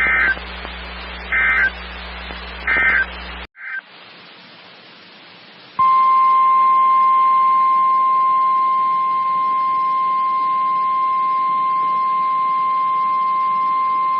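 NOAA Weather Radio alert signalling: three short warbling digital header bursts of the EAS/SAME code, then a cut to radio hiss, then the steady 1050 Hz warning alarm tone held for about nine seconds.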